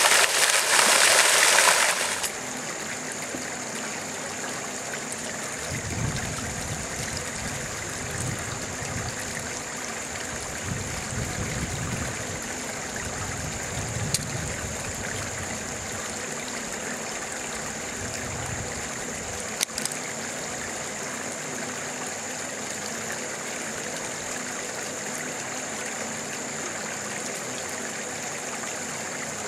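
A small stream running steadily, a constant watery hiss with a thin high steady tone above it. A much louder rushing noise in the first two seconds cuts off abruptly, and low rumbles come and go through the middle.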